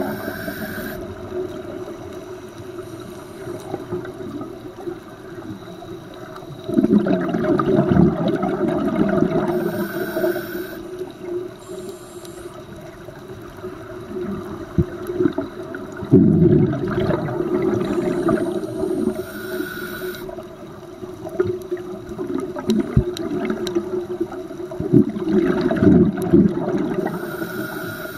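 Scuba diver breathing through a regulator underwater: three long rushes of exhaled bubbles, about nine seconds apart, each followed by a short hiss of inhalation.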